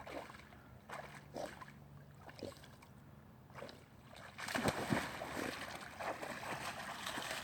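A Chesapeake Bay Retriever moving through water among logs: a few faint splashes and knocks, then louder, continuous splashing and sloshing from about four seconds in.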